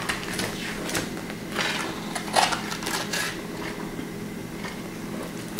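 Sealed plastic bags of Lego pieces and a paper instruction booklet being handled: irregular crinkles with light clicks of the bricks inside, over a steady low hum.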